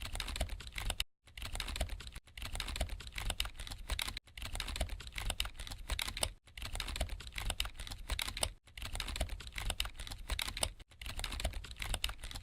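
Rapid, irregular clicking, dense and continuous, broken by short gaps about every two seconds.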